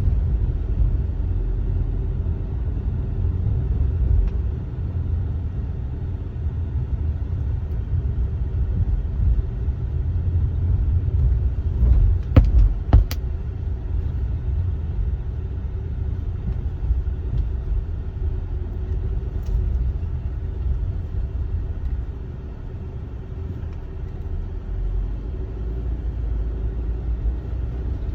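Steady low road and engine rumble heard from inside a moving car, with two sharp pops close together about halfway through.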